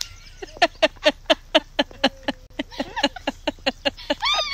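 A person laughing hard in a quick, even string of short "ha" sounds, about five a second, each dropping in pitch, ending in a high squeal that rises and falls.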